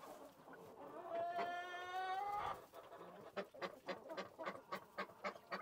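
A chicken's long pitched call, rising slightly and lasting about a second and a half, then a quick run of short sharp sounds, about four or five a second.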